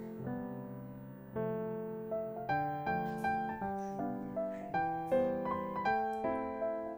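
Background piano music: soft, slow notes that pick up about a second and a half in into a steady run of about two notes a second.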